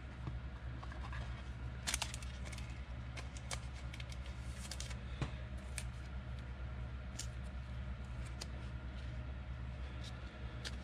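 Football trading cards handled and flipped through by hand: scattered soft clicks and brushes of card stock, over a steady low hum.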